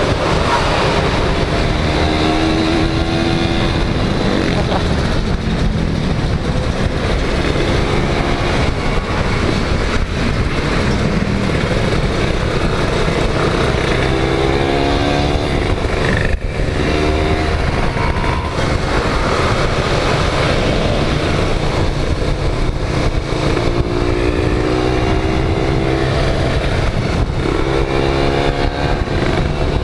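Kawasaki Ninja 150 two-stroke single-cylinder motorcycle engine running under way, its pitch climbing several times as it revs up through the gears, over a steady rush of wind and road noise on the microphone.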